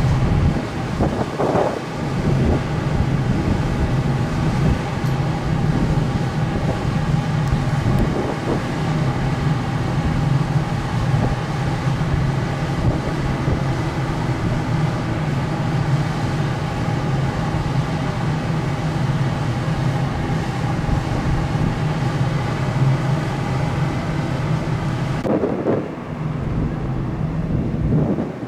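Steady low drone of a large car ferry under way, with wind rushing over the microphone. Near the end the high hiss drops away suddenly, leaving the low hum.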